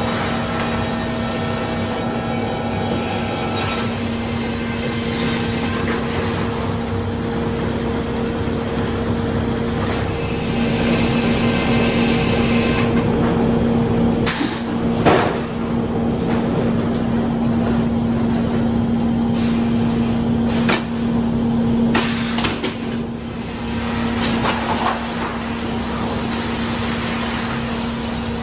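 Sawmill machinery running: a steady hum of motors under a broad mechanical rush, with a few sharp knocks and clanks around the middle.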